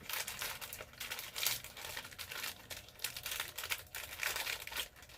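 Plastic snack wrapper crinkling as it is handled, in irregular crackles and short rustles.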